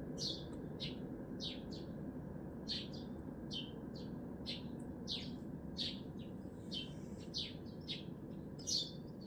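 A small bird calling over and over in short, sharp chirps, about two to three a second, above a steady low hum of city traffic.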